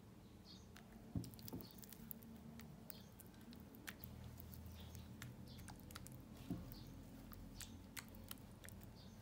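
Silicone spatula stirring thick cream cheese batter in a ceramic bowl: soft wet squishing and scraping with many small sharp clicks of the spatula against the bowl, and two dull knocks, one about a second in and a louder one later. Faint bird chirps in the background.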